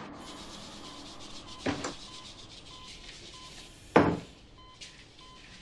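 Operating-room patient monitor beeping steadily, a short tone about every 0.6 seconds over a low hiss. Two sudden whooshes cut across it, the louder about four seconds in.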